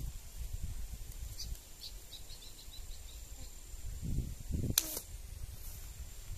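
A fishing slingshot is fired about five seconds in: a single sharp snap as the rubber bands release a line-tethered arrow, just after some low handling thumps. Earlier, a bird calls a short run of high notes that come quicker and fainter.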